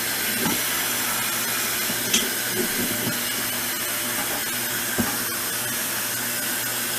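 Water running steadily from a kitchen tap into a saucepan of potatoes, with a couple of light knocks.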